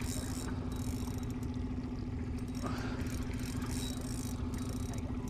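Small outboard motor running steadily at low speed, a constant hum.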